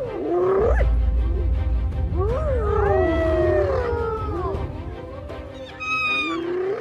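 Several hyenas calling over one another with high, swooping squeals and whoops, over a low rumble in the first part.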